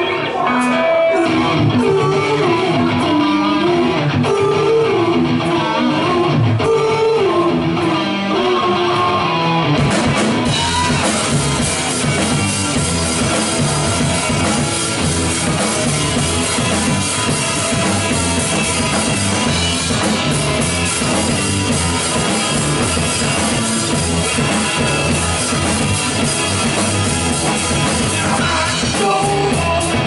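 Live rock band playing: electric guitar, electric bass and drum kit. About ten seconds in the sound thickens into the full band with a steady beat.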